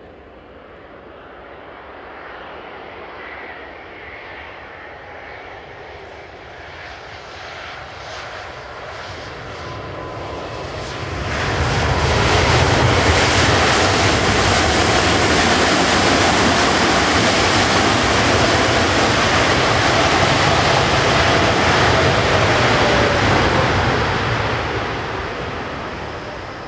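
Boeing 787-8's Rolls-Royce turbofans whining louder as the jet comes in on final approach. About eleven seconds in, a sudden loud roar of reverse thrust begins after touchdown, with the thrust reversers deployed. It holds steady for about twelve seconds and dies away near the end.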